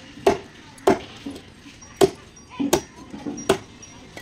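A heavy curved knife chopping through katla fish steaks on a wooden log block: about five sharp chops at uneven intervals.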